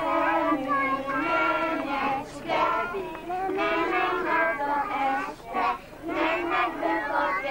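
Children's voices singing a song together, a steady sung melody with held notes and short breaks between phrases.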